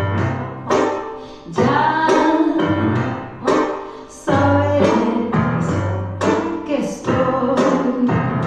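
Music with rhythmic piano-like chords and a strong beat, with what may be singing voices over it.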